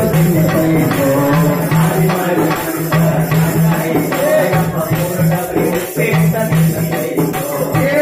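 A man singing a Kannada folk song into a microphone, with a hand-held jingle-ring tambourine shaken and struck in a steady rhythm alongside other hand percussion.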